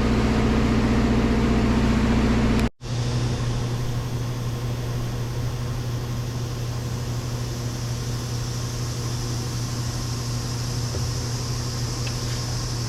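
Steady mechanical hum with a few even low tones, cutting out abruptly for a moment about three seconds in and then carrying on slightly changed.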